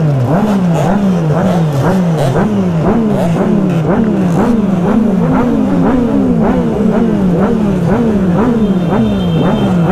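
Motorcycle engine revved in quick, regular throttle blips, about two a second, the pitch climbing and dropping with each blip.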